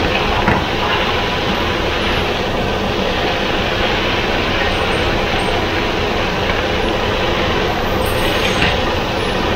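Stir-frying: rice noodles, shrimp and vegetables sizzling in a hot wok as they are tossed with a wooden spatula, giving a steady rushing noise with a light knock about half a second in.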